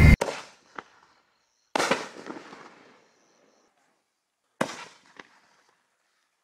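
5-inch aerial firework shells going off, each a sharp bang that trails off with echo. There are two strong bangs about three seconds apart, with a few lighter pops around them, after a loud intro sound cuts off at the very start.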